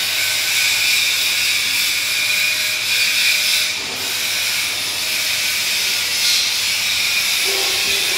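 Steady, loud hiss with a brief dip about four seconds in.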